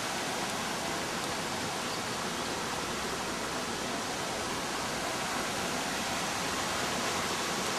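Steady rush of falling water from a garden waterfall, an even hiss with no break.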